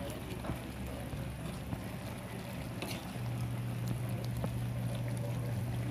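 Chicken pieces sizzling in a metal pan as the sauce cooks down, with a metal spoon clicking and scraping against the pan while stirring. A steady low hum comes in about three seconds in.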